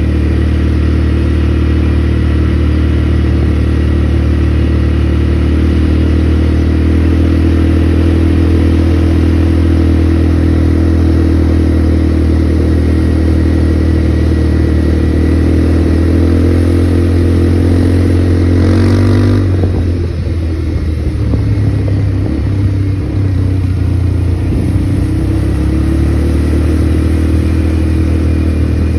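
ATV engine running steadily under throttle, its pitch dropping about two-thirds of the way through as the revs fall, then running on at lower revs.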